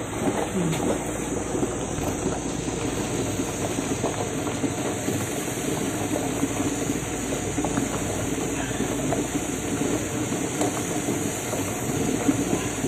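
Water at a rolling boil in an aluminium pot on a gas stove, bubbling steadily with many small pops over a constant hiss.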